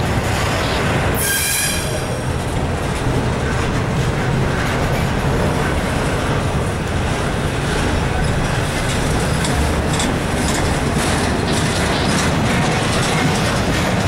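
Double-stack intermodal well cars of a freight train rolling past at close range, a steady rumble and rattle of wheels and cars. A brief high-pitched wheel squeal sounds about a second in, and sharp clicks and clanks from the wheels and couplings come through in the second half.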